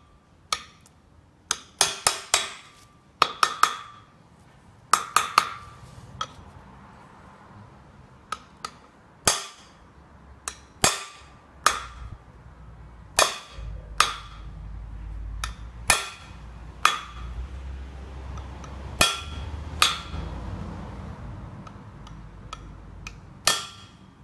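Sharp metal-on-metal taps with a short ring, irregular and in quick pairs and triples at first, then single and spaced out. A blunt screwdriver is being tapped around the rim of a Land Rover Discovery 3 propeller shaft joint, crimping its metal edge back over after a new centre bearing was fitted.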